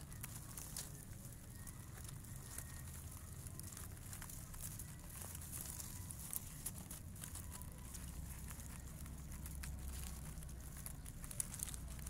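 Faint background: a steady low rumble with scattered soft crackles and clicks.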